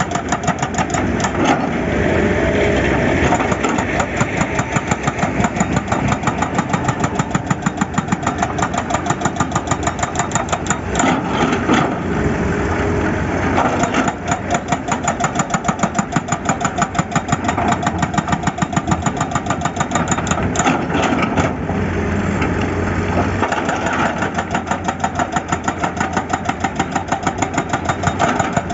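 Heavy diesel engine of an excavator running steadily, with a rapid, even clattering pulse.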